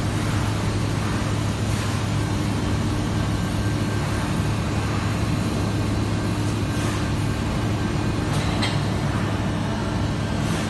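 Industrial tunnel washer's press machinery running on a test run: a steady low hum with a few brief hisses over it.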